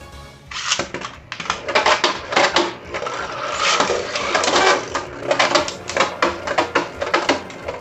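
Spinning Beyblade tops clashing, a rapid, irregular clatter of hard knocks and scrapes that starts suddenly about half a second in.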